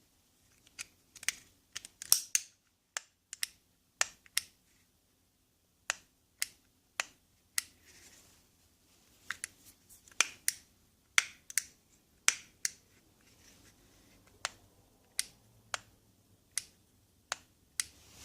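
Sharp plastic clicks from an Infiniti M power window switch assembly being worked by hand as a button cap is tilted off. The clicks are irregular, some in quick pairs, with a short pause about a third of the way in.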